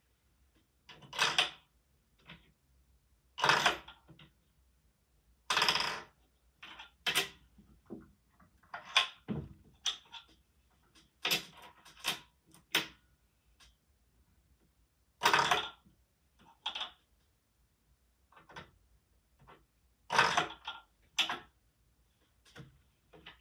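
A Lego candy machine's plastic mechanism clicking and clattering in about a dozen short, irregular bursts.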